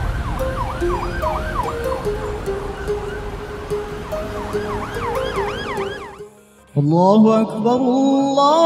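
Electronic background music with a quick, repeating siren-like rise-and-fall synth sweep over held bass notes. About six seconds in it fades out and a new passage starts with sliding, stacked synth notes.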